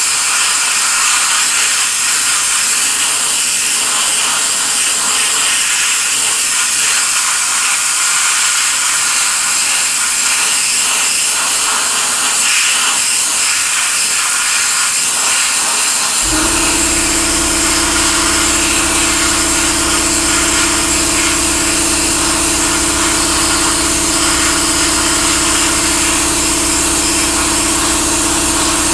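Pressure-pot sandblaster nozzle hissing steadily as fine abrasive is blasted against the louvers of a 1936 Ford truck hood. About halfway through, a steady low motor hum starts and runs on under the hiss.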